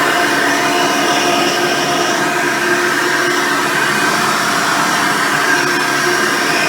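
Hoover Decade Elite Soft & Light upright vacuum cleaner running steadily, a constant whine of several tones over a rushing hiss.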